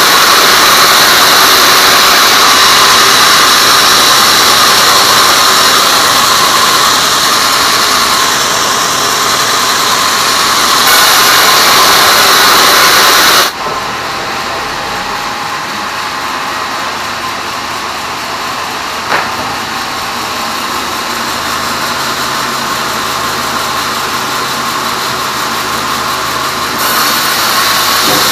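Band sawmill blade cutting through teak: a loud, steady, hissing saw noise. About halfway it drops abruptly to a quieter steady machine hum of the saw running without cutting, with a single click, and grows louder again near the end.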